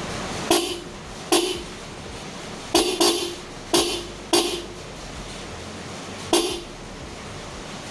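Small electric vehicle horn, just repaired, giving seven short beeps at uneven intervals, each cut off quickly; it sounds again, showing the repair has worked.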